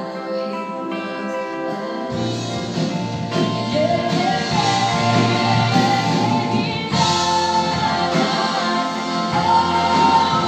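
Live worship band with electric guitars and a lead singer performing a song. Held notes open it, the full band comes in fuller and louder about two seconds in, and a sung melody carries over it.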